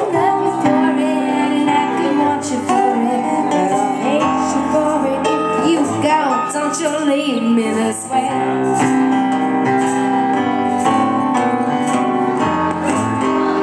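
Live acoustic duo: a woman singing over her own keyboard playing, with a strummed acoustic guitar accompanying.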